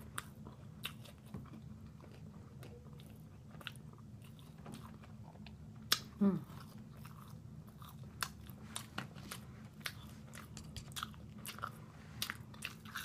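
A person chewing crispy fried chicken and fries with the mouth open: irregular crunchy clicks and wet smacking throughout. About six seconds in there is a short vocal sound that drops in pitch.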